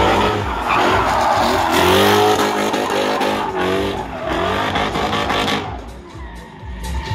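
A drifting car's engine revving hard, its pitch rising and falling several times, with the tyres squealing as they slide; the sound fades away near the end.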